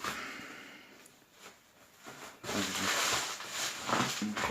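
Plastic wrapping film on a parcel rustling and crinkling as it is handled, with irregular crackles starting about two and a half seconds in.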